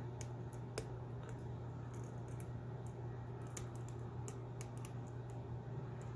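Small, irregular metallic clicks of a lock pick and tension wrench working the pin stack inside a solid brass padlock, with a steady low hum underneath.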